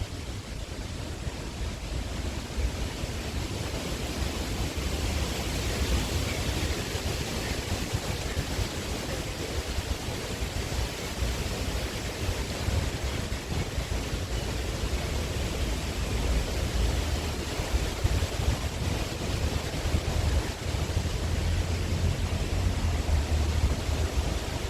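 Wind buffeting the microphone: a steady rushing noise with a low rumble that swells and dips.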